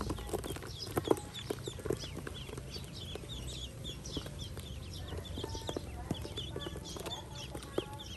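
A crowd of newly hatched Pekin ducklings peeping: many short, high, falling chirps overlapping in a constant chatter, with a few sharp knocks.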